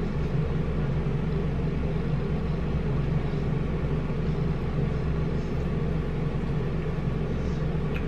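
Steady hum of an air conditioner running in the room, with faint chewing.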